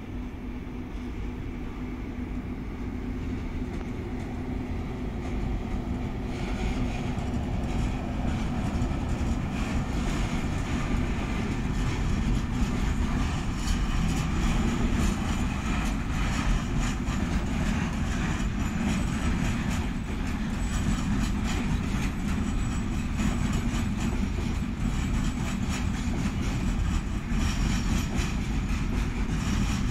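Freight train rolling past on the rails, a steady heavy rumble that grows louder over the first dozen seconds and then holds.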